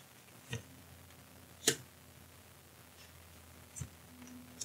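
Oracle cards being drawn from the deck and laid on a tabletop: three short card clicks and taps, the sharpest about a second and a half in.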